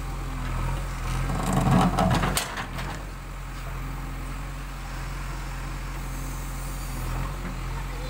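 JCB 3DX backhoe loader's diesel engine running steadily under hydraulic load while the backhoe digs. About one and a half seconds in comes a louder stretch with crunching clicks as the bucket is drawn through earth and stones; it stops abruptly about two and a half seconds in, leaving the engine running steadily.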